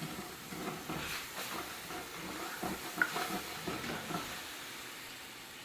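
Brandy glazing a hot cast-iron skillet with toasted garlic, sizzling steadily, with a few light clicks.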